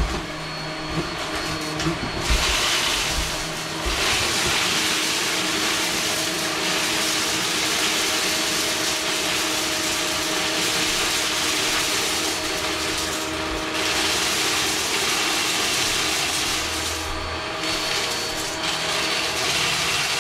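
Upright vacuum cleaner running steadily on carpet, its head pushed back and forth over a line of spilled dark crumbs as it sucks them up. There are a couple of low knocks near the start, and a brighter hiss from about two seconds in.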